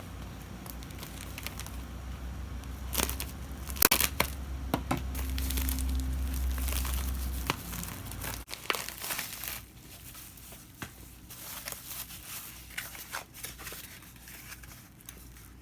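A package being unwrapped by hand: its packaging crinkling and tearing in irregular rustles, over a low hum that stops about eight seconds in.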